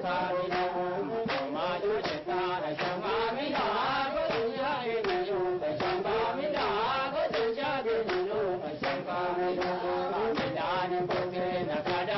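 A group singing a chant-like song together, accompanied by steady rhythmic handclaps at about two claps a second.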